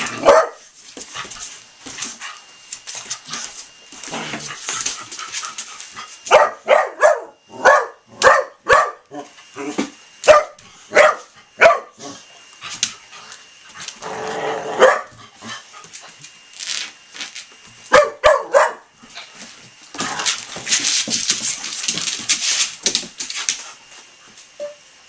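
A pit bull and a young foster puppy play-fighting over a slipper: runs of short, sharp play barks, about a dozen in a row several seconds in and a couple more later. A few seconds of rustling noise come near the end.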